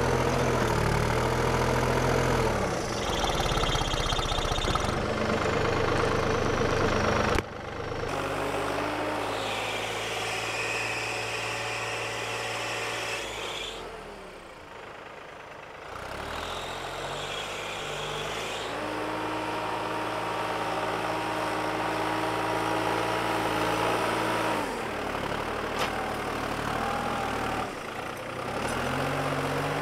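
Diesel loader tractor's engine working as it pushes and packs chopped corn silage on a pile, its pitch rising and falling over and over as it revs up and eases off. A higher whine comes and goes over it.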